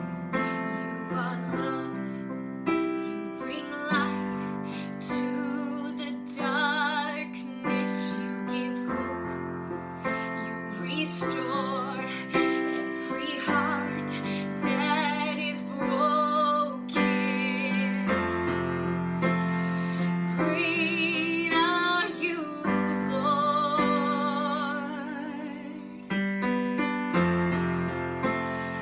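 A woman singing a slow worship song over piano chords, her held notes wavering with vibrato.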